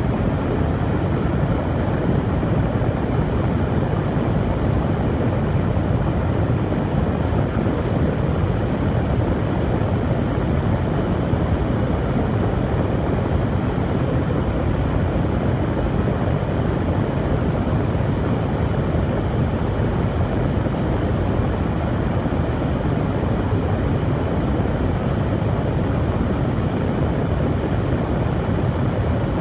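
Hair dryer running steadily, a constant whoosh of blown air and motor hum, heaviest in the low range and unchanging in level.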